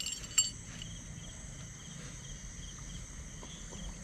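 Night insects such as crickets chirping: a steady high trill with a rhythmic pulsed chirp repeating lower down. A single sharp click or knock sounds just after the start.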